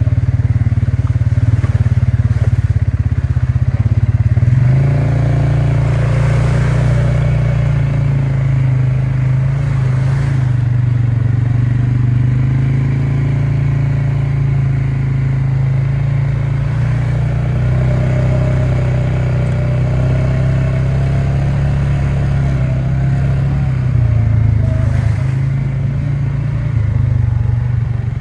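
ATV engine running as the quad rides along a trail. The engine note steps up about four seconds in, holds, and eases back down near the end.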